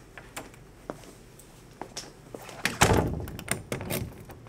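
A door being handled: scattered light clicks and knocks, with a heavier thud about three seconds in.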